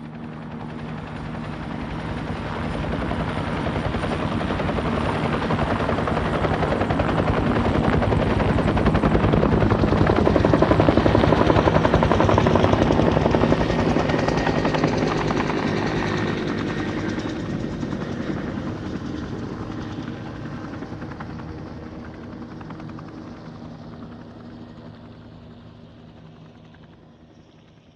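Helicopter flying past, its rotor chop and turbine growing louder to a peak somewhat before the middle and then slowly fading away.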